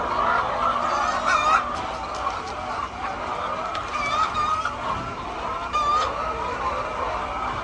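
Flock of laying hens clucking together in a steady din of overlapping calls, with a few louder single calls standing out about a second and a half in, around four seconds and around six seconds.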